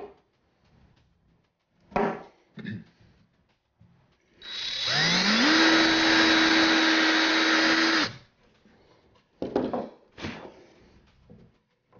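Cordless drill spinning up with a rising whine and boring into a wooden board for about three and a half seconds, then stopping. A few short knocks come before and after.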